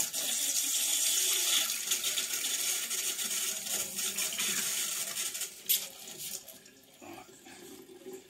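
Water and air rushing out of the vent on a Worcester Bosch boiler's main heat exchanger, through a hose into a sink, as the refilled heat exchanger is bled of trapped air. The rush is steady, then dies away about six seconds in, with a single click near the end.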